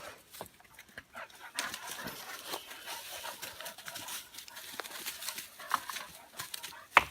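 A dog tugging and gnawing at a PVC pipe, making dog sounds and a scatter of small clicks and knocks, with one sharp knock just before the end.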